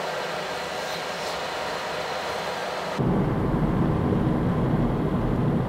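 Steady rumble of a car driving, heard from inside the moving car. About three seconds in it abruptly becomes louder and deeper.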